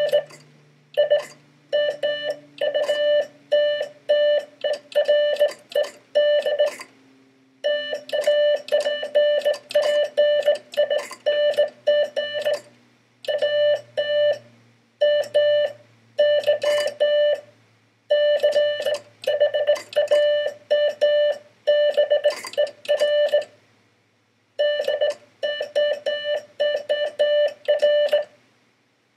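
Morse code sent on a Vibroplex semi-automatic bug key: a steady tone near 600 Hz keyed on and off in rapid dots and dashes, with the key's contacts clicking sharply on each element. The sending breaks off briefly three times, between groups of characters.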